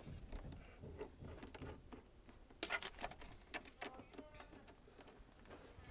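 Faint clicks and light rattles of hands handling a braided brake line and its brass fitting, with a run of sharper clicks about halfway through.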